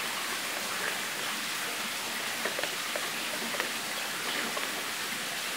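Wire whisk beating thin pancake batter of flour and milk in a plastic bowl: a steady wet swishing with light ticks of the whisk against the bowl.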